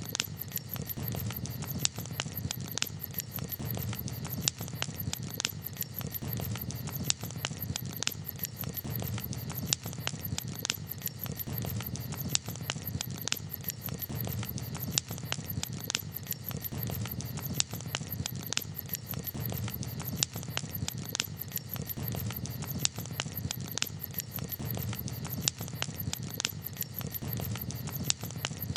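Campfire crackling: irregular sharp pops and snaps, several a second, over a low steady rumble.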